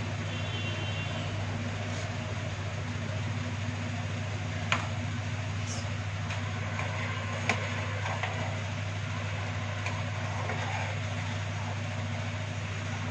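Steady low hum with an even hiss beneath it, broken by a light metal click about five seconds in and another about seven and a half seconds in, like a spoon tapping a cooking pot.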